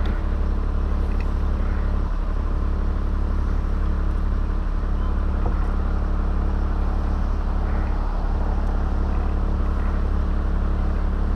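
An engine idling steadily, with no revving.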